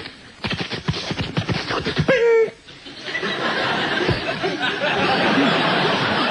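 Studio audience laughing, with a short pitched vocal sound effect made into a microphone about two seconds in; the laughter swells into a steady roar for the last few seconds.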